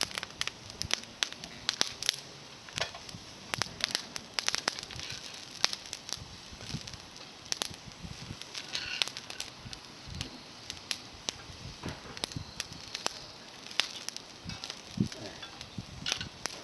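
Small wood fire of climbing-rose twigs crackling, with many irregular sharp pops and snaps over a light hiss.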